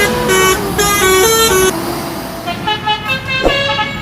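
Bus 'telolet' multi-tone horn playing a quick tune of stepping notes that stops about one and a half seconds in; after a short gap a second, quieter run of horn notes starts, with one sharp click near the end.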